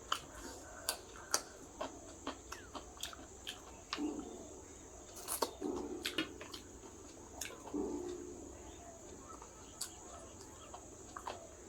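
Close-miked chewing of a rice and curry meal: many sharp wet mouth clicks and smacks at an uneven pace, with a few short closed-mouth murmurs.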